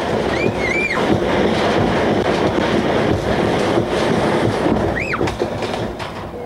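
A free-fall drop ride plunging down its tower: a loud, steady rush of wind and rumble from the falling car, with short riders' screams about half a second in and again about five seconds in.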